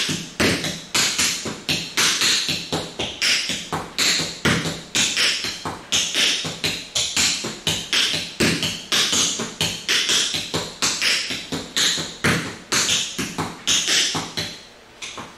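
Tap shoes striking a hardwood floor in a continuous tap-dance sequence of heel and toe beats, several crisp taps a second in a steady rhythm, stopping just before the end.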